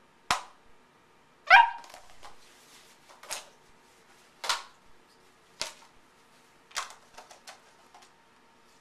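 Doberman puppy giving one short, high bark about a second and a half in, among a series of sharp clicks and crackles from a thin plastic cup being knocked about and mouthed.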